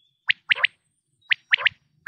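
Quail calling its three-note 'whit, whit-whit' phrase: a short sharp note then two quick notes, repeated twice with about a second between phrases. This is the quail call used as a hunting lure.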